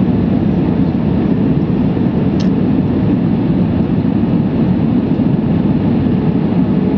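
Steady cabin noise of an Airbus A320 airliner on approach, heard from a window seat: a deep, even rush of engine and airflow noise.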